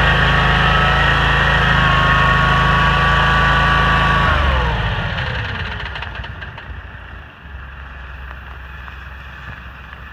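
Toro STX-26 stump grinder's gasoline engine running steadily, then shut off about four seconds in, its pitch falling as it winds down to a stop. A quieter low rumble remains afterwards.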